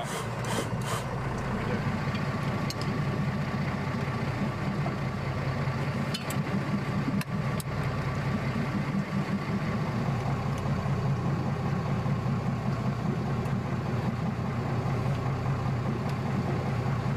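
Small boat's engine running steadily at idle, a low even drone, with a few light clicks from gear being handled on deck.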